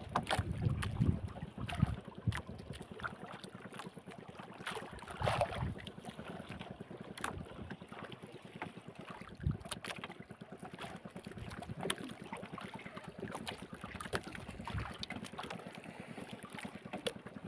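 Waves slapping and lapping against a small wooden fishing boat on a choppy sea, with wind buffeting the microphone and scattered small knocks from the boat.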